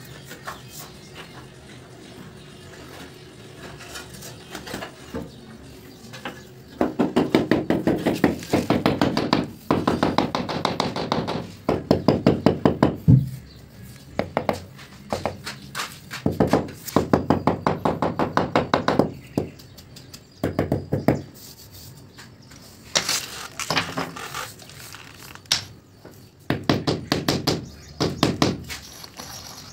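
Runs of quick knocks from the butt of a wooden hammer handle tapping a granite floor slab down into its mortar bed, sometimes through a granite offcut laid on top, to seat and level it. Each run lasts a second or two with short pauses between, and there is one heavier thump about midway.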